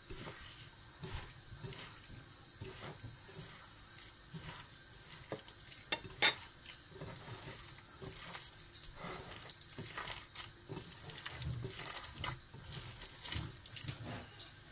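A hand squeezing and kneading a moist mix of boiled red lentils, onion, egg and breadcrumbs in a glass bowl: soft, irregular squelching and rustling, with one sharper click about six seconds in.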